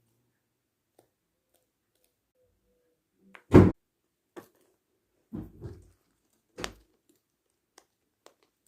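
Irregular clicks and thumps from a fidget toy being handled, with one loud thump about three and a half seconds in, a few softer knocks after it and faint ticks near the end.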